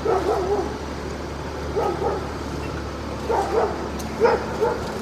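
A dog whimpering in four short, wavering bursts, the loudest about four seconds in, over a steady low hum.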